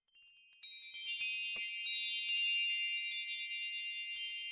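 Sparkly chime sound effect: a cluster of high ringing tones swells in about half a second in and holds, with quick tinkles glittering over it and a single sharp click early on.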